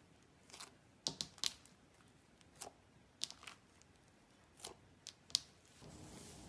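Slime being played with by hand, giving about ten sharp, irregular clicks and pops, some in quick pairs. A faint steady hiss comes in near the end.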